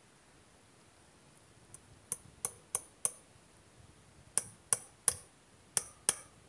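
Hammer driving a nail into a wooden post: about nine sharp taps in three quick runs, four, then three, then two.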